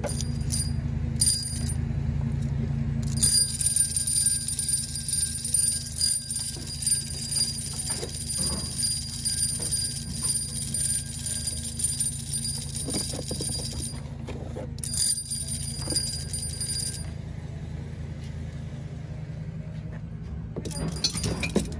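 Vintage tin wind-up tricycle toy running in the hand, its bell ringing for about ten seconds, pausing briefly, then ringing again for about two seconds before stopping. A steady low rumble runs underneath.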